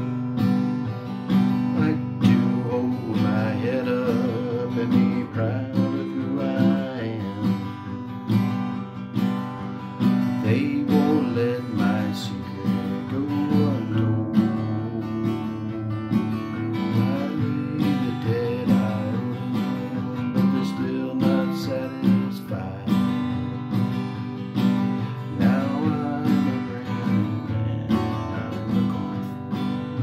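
Acoustic guitar strummed in steady chords, with a man's voice singing a melody over it.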